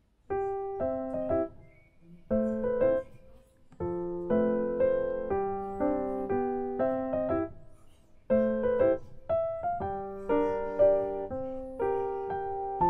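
Background piano music playing a light melody in short phrases, starting just after the opening.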